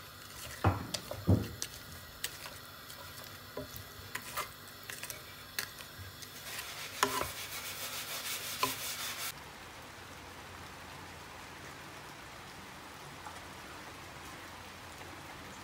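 Vegetables sizzling in a frying pan while a wooden spatula stirs and scrapes them, with a couple of louder knocks about a second in. After about nine seconds this cuts off sharply to the steady hiss of rain falling.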